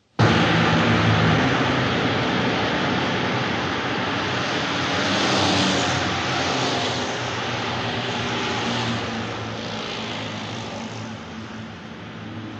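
A loud engine drone with a rushing noise over it, cutting in suddenly and slowly fading.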